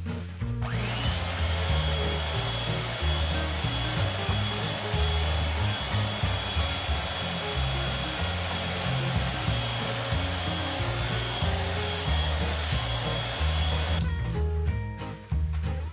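Electric hand mixer running at a steady speed with a high whine, its beaters whipping egg yolks for French buttercream. It switches on about half a second in and stops sharply about two seconds before the end.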